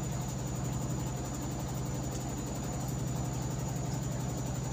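Washing machine spin cycle running steadily, the motor and spinning drum making an even hum with a fast regular pulse while water is spun out of wet clothes.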